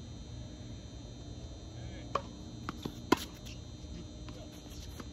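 Tennis ball being hit by rackets and bouncing on a hard court during a doubles rally. There are a few sharp pops a little past two seconds in, and the loudest comes just after three seconds.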